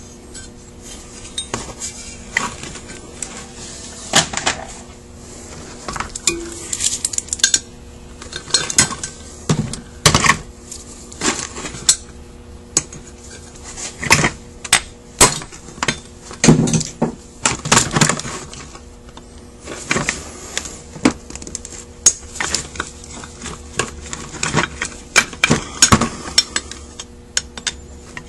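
Metal castings and small parts of a Carter WA-1 carburetor clinking and knocking against each other and the bench as the carburetor is taken apart and the pieces are set down. The taps come many times and at irregular intervals, more thickly after the first several seconds.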